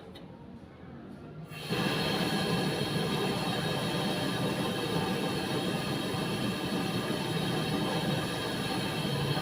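A motor-driven machine, likely a power tool used in the pot cleaning, starts suddenly about two seconds in and runs steadily and loudly with a constant whine.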